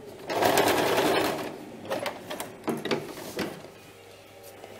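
Electric household sewing machine running in one short burst of rapid stitching, about a second long, then stopping. A few short clicks and rustles follow.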